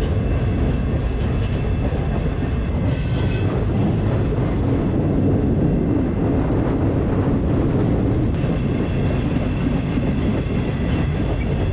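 Freight train rolling, heard from aboard a car: a steady heavy rumble of wheels on rail, with a brief high metallic squeal about three seconds in.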